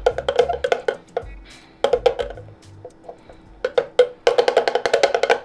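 Background music: quick, pitched percussive notes in a rhythm over short bass notes, with a run of rapid notes about four seconds in.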